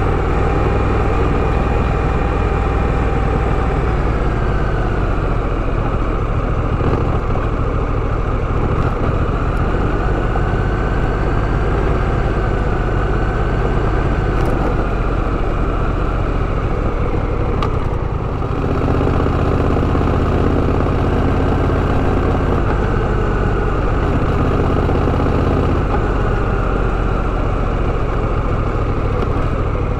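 Honda Rebel 1100 DCT motorcycle's 1084 cc parallel-twin engine running steadily. A little past halfway the level dips briefly and the engine's note changes.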